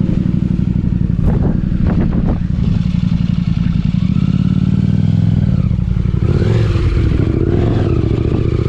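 Motorcycle engine running steadily at idle, with a few sharp knocks and clatter about a second or two in and a brief rise and fall in engine note midway.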